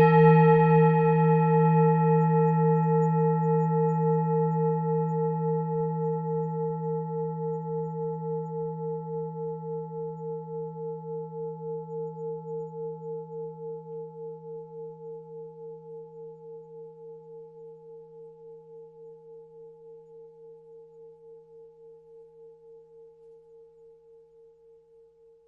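Tibetan singing bowl ringing after being struck, a deep hum under a clearer middle tone, fading slowly and evenly with a steady wobble in its tone.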